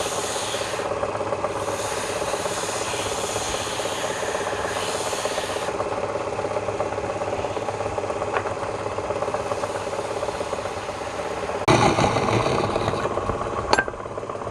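Wood lathe running with a steady motor hum while a tool rubs and scrapes on the spinning workpiece, the scraping hiss coming and going. Near the end the scraping turns louder and rougher for about two seconds, followed by a sharp click.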